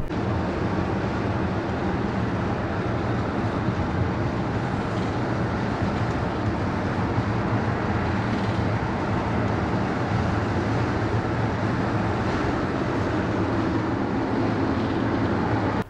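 Steady road and wind noise inside the cab of a Ford van-based RV driving at highway speed, with a low drone underneath. The fiberglass cab-over cap overhead has been stripped of its cabinet and insulation, and it sounds like there's an open window up there.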